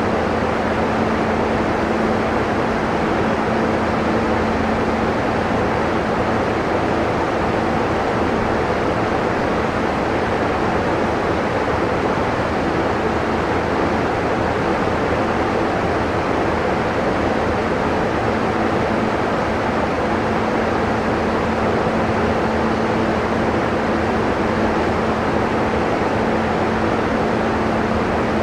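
Steady hiss of air conditioning inside a Toei 10-300 series subway car, with a faint low electrical hum. No motor whine or wheel noise: the train is standing at the platform.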